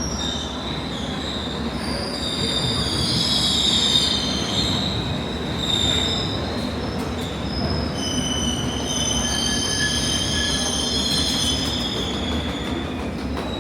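London Underground train running on the rails with a steady rumble, its wheels squealing in high-pitched tones that come and go, strongest in the first half and again past the middle.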